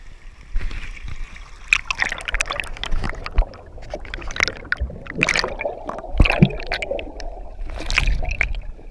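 River water splashing and air bubbles gurgling around an action camera as it goes from the surface to underwater, with many irregular sharp crackles.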